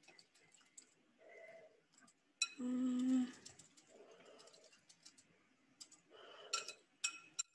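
Wire whisk stirring an egg mixture in a glass mixing bowl: faint scattered clicks and scrapes, with two bright ringing clinks of metal on glass near the end. A brief steady low hum stands out about three seconds in.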